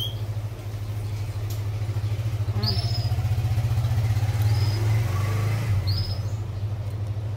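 Engine of a nearby motor vehicle running, its level swelling to a peak about midway and then easing off. Three short high bird chirps sound over it.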